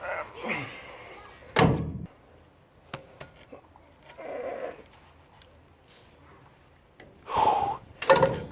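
A few sharp metallic knocks from a breaker bar being worked on a rusted, seized carriage bolt under a truck bed; the loudest comes about a second and a half in and two more near the end. Short vocal sounds fall between the knocks.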